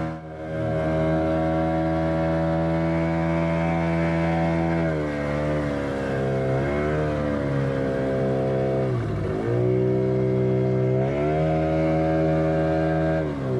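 A small boat's engine running steadily. Its pitch drops and comes back up as the throttle is eased and opened, about halfway through and again near the end.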